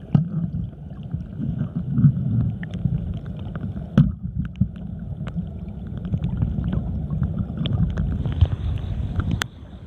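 Muffled underwater rumble and gurgle of river water against a submerged camera, with scattered sharp clicks, the clearest about four seconds in and again near the end.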